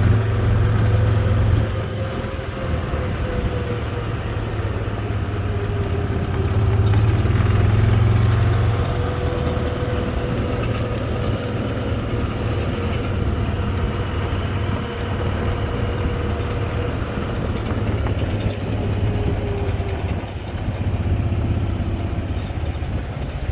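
A vehicle engine running steadily with a low hum, getting louder for a few seconds in the middle and then easing back.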